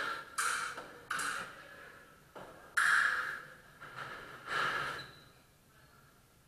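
A person breathing hard: four short, noisy breaths spaced a second or two apart, with a quieter stretch after the last.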